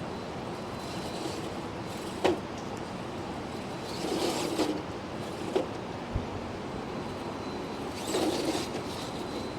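1/10-scale RC rock crawler's electric motor and drivetrain whirring in two short bursts, about four and eight seconds in, as the truck works a climb. A few sharp knocks come in between, over a steady background hiss.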